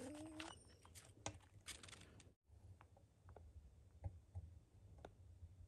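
Near silence, with a faint whine trailing off in the first half second and a few faint, scattered clicks.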